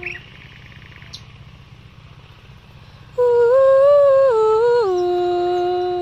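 A woman's voice singing a wordless, humming note starting about three seconds in. It glides up, steps down, then settles on a long held lower note, an improvised duet with a wild nightingale. At the very start a nightingale's quick chirping trill tails off.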